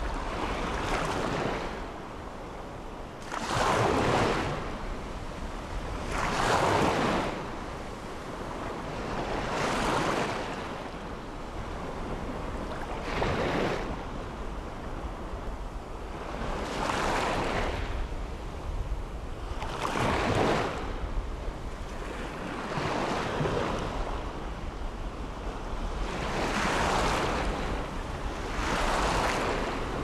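Small ocean waves breaking and washing up a sandy beach. Each wave comes as a swell of surf noise, about one every three seconds.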